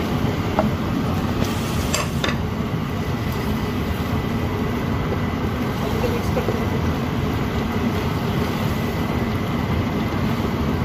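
Wooden spoon stirring minced meat, fried onions and bitter gourd in a nonstick frying pan, over a steady low rumble, with a couple of light knocks of the spoon against the pan about two seconds in.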